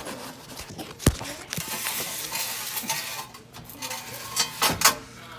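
Handling noise: a sharp knock about a second in, a stretch of rustling hiss with small clicks, then a few louder knocks near the end.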